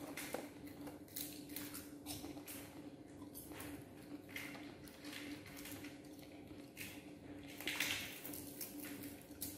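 Popcorn crunching and rustling: baby macaques chewing pieces while a hand digs into a plastic cup of popcorn, in short irregular crackles, a little louder about eight seconds in, over a steady low hum.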